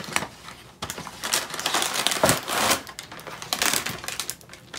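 Cereal box being opened: the cardboard top worked open and the crinkly plastic inner bag pulled out, in a run of rustling bursts.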